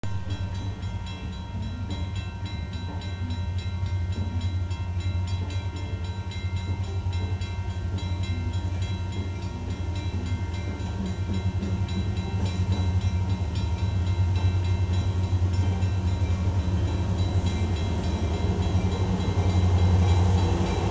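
Union Pacific diesel locomotive leading a freight train on the approach: a steady low engine rumble that grows gradually louder as it draws near.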